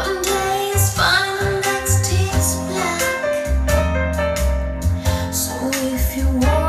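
Recorded music with a singer playing through a home-built loudspeaker: a re-coned vintage JBL D130 15-inch driver with a Celestion super tweeter, driven by a Heathkit KT66 tube amplifier. Deep bass notes sit under the voice throughout.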